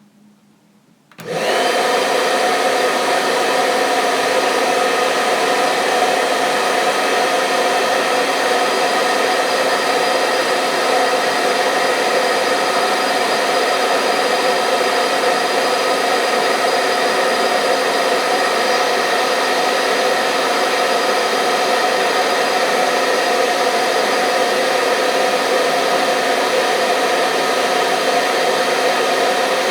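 Hair dryer switched on about a second in, then running steadily: a loud, even whirring rush of air with a constant motor hum.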